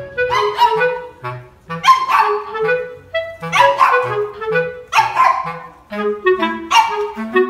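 A small dog barks about five times, one bark every second and a half or so, over background music with a clarinet-like melody.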